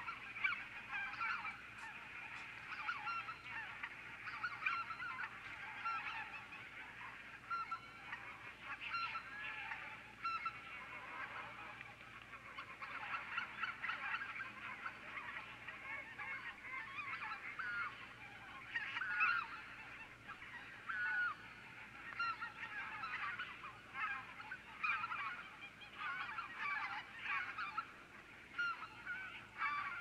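A large flock of wild geese calling continuously, many honks and yelps overlapping with no pause.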